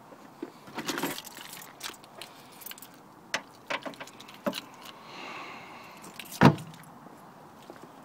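A run of clicks and rattles from handling a hatchback's open boot, then one loud, deep thud about six and a half seconds in as the tailgate is shut.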